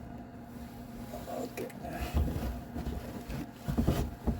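Handling noises from work on a car's headlight area: rubbing, scraping and a few light knocks, busiest in the second half, with a sharp click at the very end.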